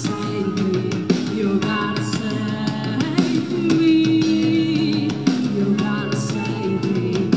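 A rock band playing live: drum kit, electric guitars and a sung vocal line, steady and loud.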